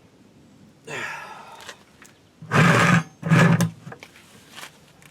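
A power tool run in two short bursts near the middle, each with a steady low hum. This follows a briefer sound with falling pitch about a second in.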